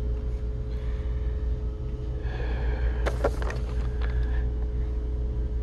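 Steady low hum of the store's background, with a few short clicks a little past halfway.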